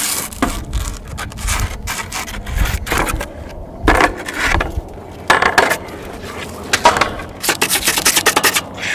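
A rock scraping and grinding against skateboard griptape over a metal handrail, used to file the griptape's edge in place of a razor blade. Irregular rasping strokes, turning into a quick run of short strokes near the end.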